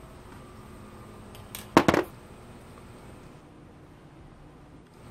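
A quick cluster of two or three sharp clicks about two seconds in, with another right at the end: small hard plastic parts being handled, knocking together or against a wooden tabletop, over a faint steady hum.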